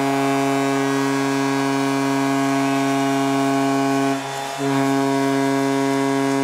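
A loud, steady droning hum made of several held tones, which dips out briefly about four seconds in and then resumes unchanged.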